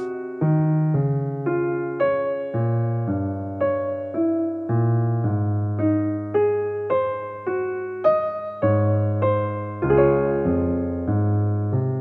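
Slow solo piano music: single notes struck about twice a second, each fading, over held low notes.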